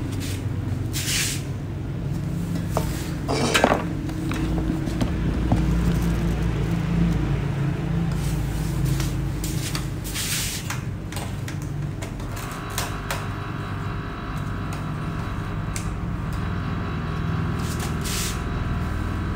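Light clicks and knocks of metal and plastic parts being handled as a TV's power board and its cover are refitted on the chassis, over a steady low hum.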